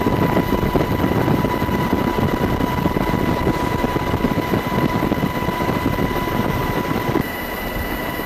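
Steady noise of the filming aircraft: a dense low rumble under a constant high whine. The rumble drops away abruptly about seven seconds in, leaving the whine.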